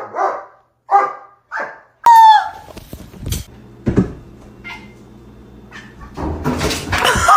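A pet animal calling: three short calls, then a louder call falling in pitch about two seconds in. A steady low hum runs through the middle, and a louder noisy stretch comes near the end.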